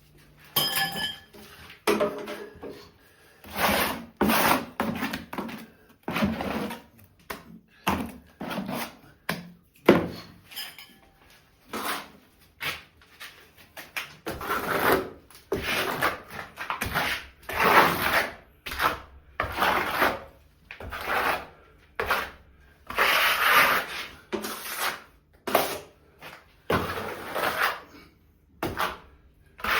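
Hand-tool work: an irregular series of short scraping or rubbing strokes, each lasting from half a second to over a second, with brief pauses between.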